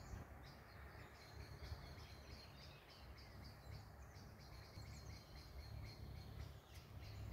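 Near-silent outdoor ambience: faint, repeated high-pitched bird chirping over a low, steady rumble.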